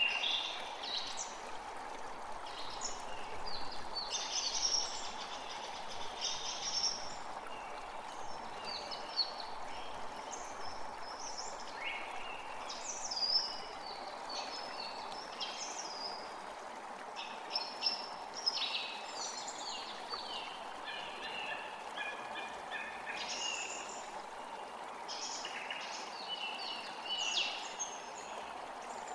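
Several wild birds chirping and trilling in quick, overlapping phrases, over the steady rush of a flowing stream.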